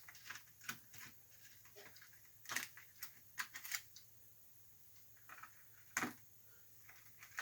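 Scattered clicks and clinks of hand tools being picked up, handled and set down while a tool of the right size is sought, with the sharpest knocks about two and a half and six seconds in.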